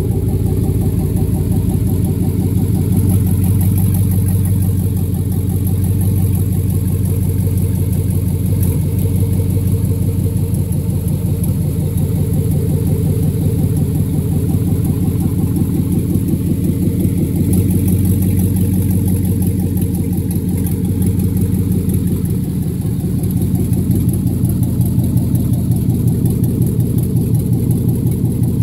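2007 Chevy Avalanche 1500's Vortec V8 engine idling steadily.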